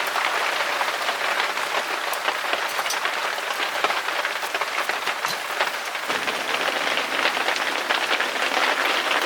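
Rain mixed with fine hail falling steadily: a dense, even clatter of many small hits.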